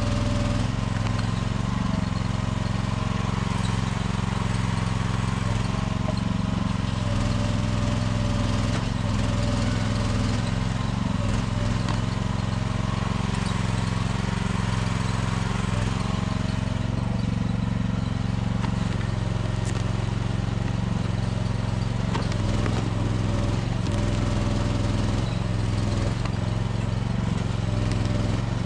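Small engine of a budget mini excavator running steadily at constant speed, with a few faint knocks in the second half.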